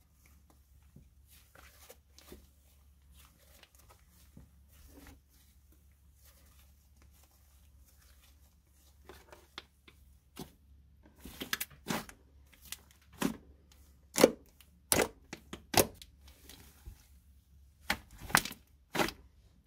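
Hands stretching, folding and squeezing a grainy fake-snow slime. Faint sticky crackling at first, then from about nine seconds in a run of sharp, irregular pops and snaps as the slime is pulled apart and pressed.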